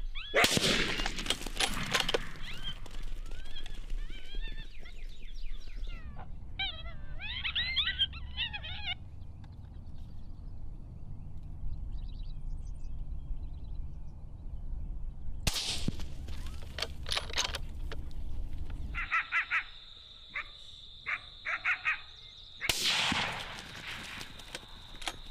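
Three rifle shots several seconds apart, each a sharp crack trailing off over about a second. Between the first two come a few seconds of high, wavering animal calls, and crickets trill steadily after the second shot.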